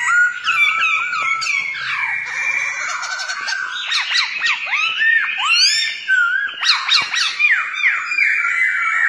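Black-throated laughingthrush singing up close: a continuous, rapid, varied run of loud whistled notes with quick rising and falling glides.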